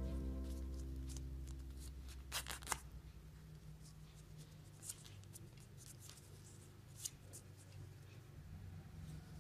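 Sheet of origami paper rustling and creasing under the fingers as it is folded, with a few short crinkles and taps, the loudest cluster about two and a half seconds in.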